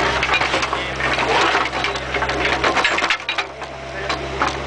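Bobcat 430 mini excavator's bucket scraping and crunching through stones and debris, with many sharp clicks and cracks of material rattling against the steel bucket, over the steady hum of the machine's engine. The hum drops away for about a second a little after the middle.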